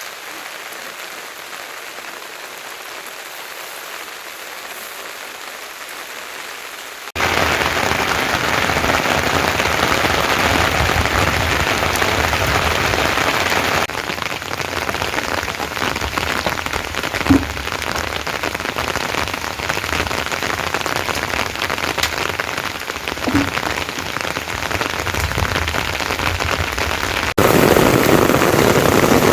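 Heavy rain falling in a dense, steady hiss. It jumps much louder about a quarter of the way in, eases slightly around the middle and swells again near the end, with two brief sharper blips in between.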